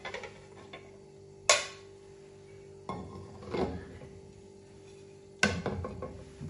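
A frying pan and ceramic plate clattering as a cake is turned out of the pan onto the plate: a sharp clack about a second and a half in, a knock and scrape around three seconds in, and another clatter near the end, over a steady low hum.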